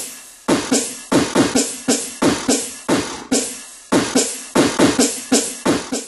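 Beatboxing: a quick, steady drum beat made with the mouth, sharp kick- and snare-like hits at about three to four a second.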